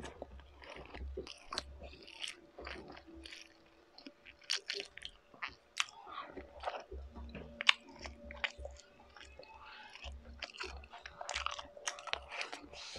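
A person chewing and biting food with the mouth close to the microphone, eating a red hotdog by hand: irregular wet mouth clicks and smacks throughout.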